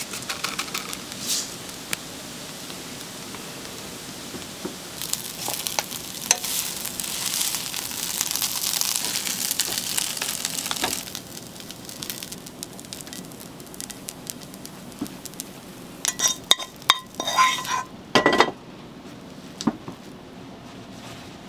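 Fried rice sizzling in a hot pan while a metal spatula stirs and scrapes it, with scattered clicks. The sizzle swells for several seconds partway through, and near the end the spatula clanks and scrapes against the pan with a ringing metallic sound.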